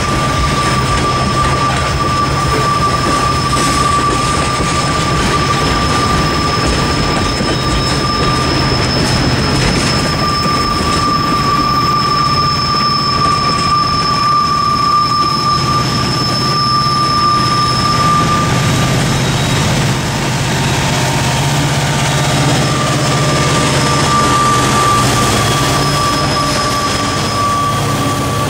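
Freight train cars rolling past at a crossing: a steady rumble and clatter of wheels on the rails, with a steady high-pitched tone running over it. In the last several seconds a diesel locomotive's low engine drone grows as a locomotive reaches the crossing.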